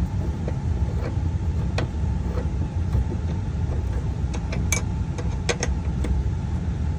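Light metallic clicks and taps of hand tools on the bolts and bracket of a pickup's rear sliding window regulator, clustered a few seconds in, over a steady low rumble.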